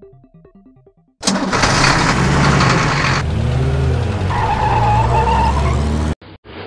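Engine sound effect for a cartoon monster truck. It comes in abruptly about a second in after a faint rhythmic musical beat, runs loud with the revs rising and falling, and cuts off suddenly near the end.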